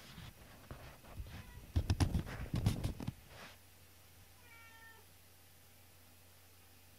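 Two cats play-fighting, scuffling and thumping on a wooden floor for about three seconds, loudest in the middle. About four and a half seconds in, one cat gives a single short meow.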